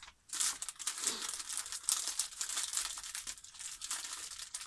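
Plastic packaging crinkling and rustling as the contents of a first aid kit are rummaged through by hand, with many small, irregular crackles.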